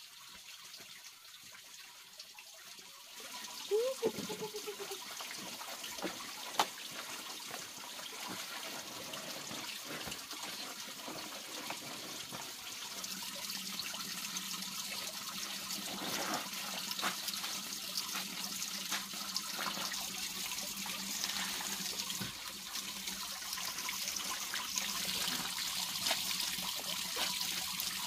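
Clothes being hand-washed in a plastic basin: water sloshing and splashing as wet garments are lifted and worked, growing louder toward the end. A short pitched call comes near four seconds in, and a sharp knock about six and a half seconds in.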